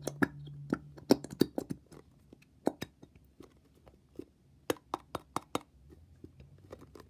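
Glue being squeezed out of a plastic bottle into a container: a run of irregular sharp clicks and pops. They are thickest in the first two seconds and again about five seconds in.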